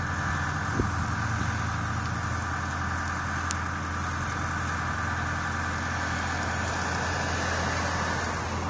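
A motor vehicle engine idling steadily, with a car driving past close by near the end.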